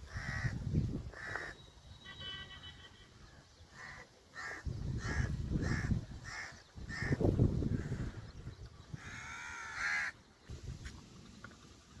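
A crow cawing over and over, short caws at about two a second through the middle and one longer harsh call near the end. Loud bursts of low rumble come and go underneath.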